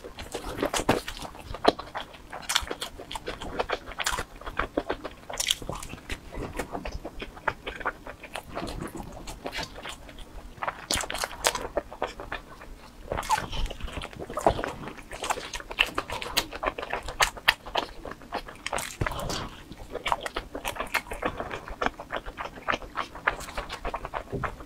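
Close-miked chewing and biting into a slice of pizza: a steady run of irregular clicking mouth sounds.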